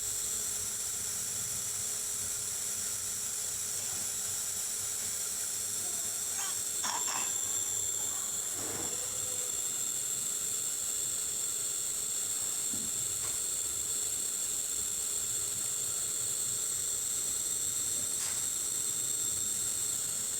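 Steam-therapy inhaler running with a steady high hiss and a constant thin whine, giving off vapour to treat a child's cough. There are a couple of faint brief sounds about seven and nine seconds in.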